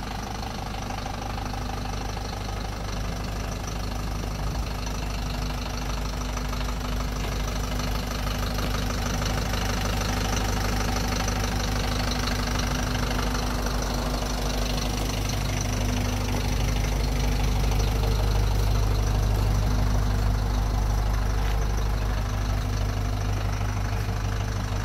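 Hyundai County minibus engine idling steadily, growing louder in the second half.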